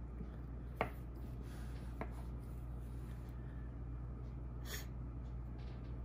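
Faint handling sounds of thin lanyard cord being worked into a knot by hand: two light ticks about one and two seconds in, and a short breathy hiss near five seconds, over a steady low hum.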